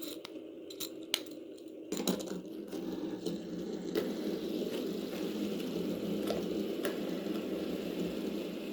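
Plastic fidget toys being handled: a few sharp clicks, then from about two seconds in a steady dense rustling clatter with scattered clicks.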